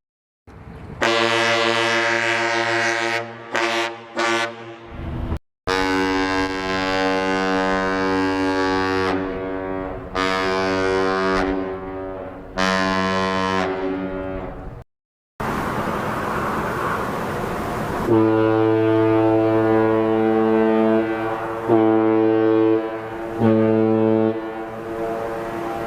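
A freighter's ship whistle sounding a series of long, loud blasts with short breaks between them, and a rushing hiss between the groups of blasts.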